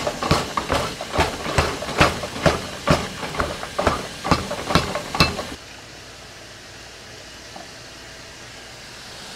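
Power hammer pounding a glowing steel billet on the anvil, about two blows a second, stopping after about five seconds. Then a steady quieter hiss of steam rising off the hot steel.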